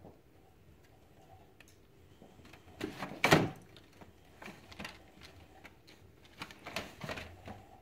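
A kitten knocking and rattling a plastic gravity-fed pet water dispenser: a cluster of sharp knocks about three seconds in, the loudest, then more scattered knocks and rattles.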